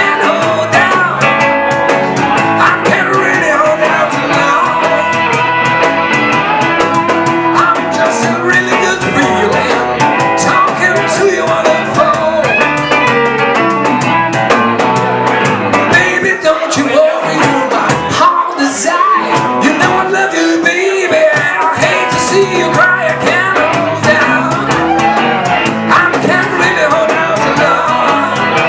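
Live band playing upbeat rock and roll, with a singer, guitar and a steady drum beat.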